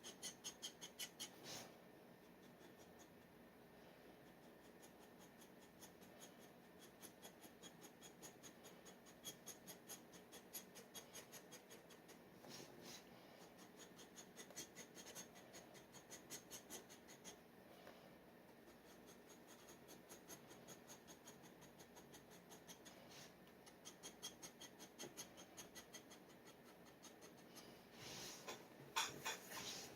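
Steel G nib dip pen scratching on paper in quick, repeated short strokes, faint, with a louder run of strokes near the end.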